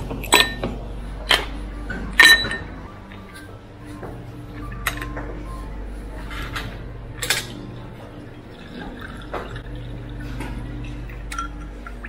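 Drinking glasses clinking, with three sharp ringing knocks in the first couple of seconds and another a few seconds later. Between them juice runs from a drink dispenser's hand-pressed tap into a glass, over a steady low hum.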